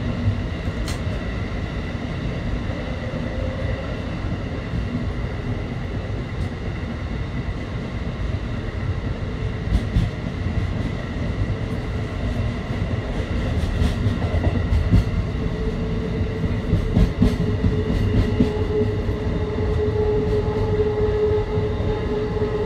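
Amtrak Northeast Regional passenger train running through a tunnel, heard from inside the rear car: a steady low rumble of wheels on rail with scattered sharp clicks. About two-thirds of the way through, a steady whining tone comes in and grows louder.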